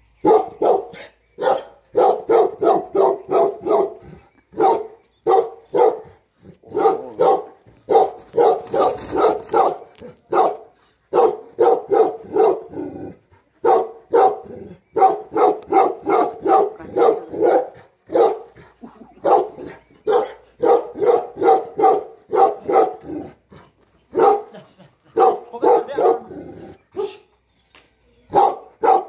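Tibetan Mastiff barking over and over, in runs of several quick barks, about three a second, with short pauses between the runs.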